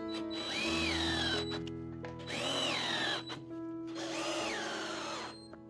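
Power drill-driver driving screws into a pine board: three separate bursts of motor whine, each rising quickly in pitch and then sagging as the screw bites into the wood.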